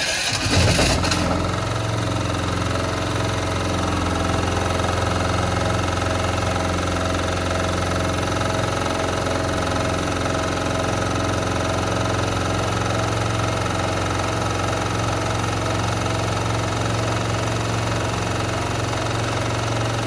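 Sumec Firman SPG3000E2 petrol generator's single-cylinder four-stroke engine, just started with its newly fitted ignition switch, surging in the first second and then running steadily.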